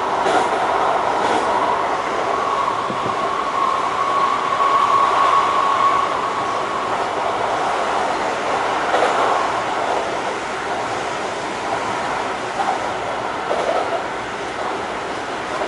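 Kyoto Municipal Subway 20 series electric train running, heard from inside the car: a steady rush of wheels on rail with a few faint clicks from rail joints. A steady high tone holds for a few seconds in the first half.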